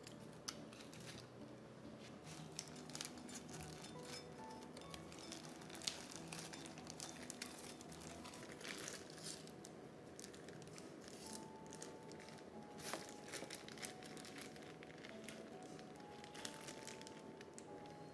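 Irregular crinkling and crackling from wrapping material being handled, over soft background music with slow, held notes.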